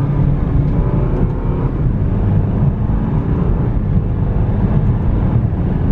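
BMW F30 3 Series engine heard from inside the cabin as the car accelerates, its pitch rising in the first second or two, over steady road rumble.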